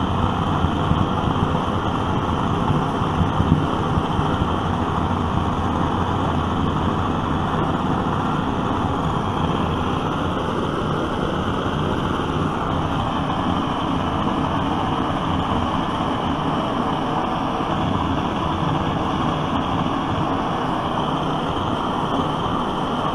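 Vintage brass gasoline blowtorch burning, a steady loud rushing, with slight changes in its tone partway through as the valve is worked.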